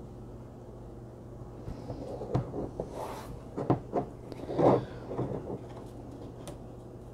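Clear acrylic stamping block and other craft supplies handled on a tabletop: a scatter of light knocks, clicks and taps, the loudest a short clatter just past the middle.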